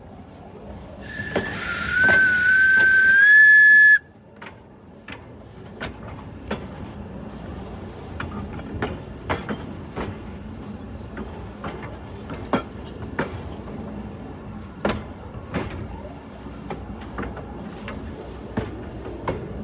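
The 1920 Baldwin steam locomotive's whistle blows one long blast with a steam hiss, its pitch creeping slightly upward before it cuts off suddenly about four seconds in. After that comes the slow rumble of the moving caboose, with irregular clicks and knocks from the wheels and car body.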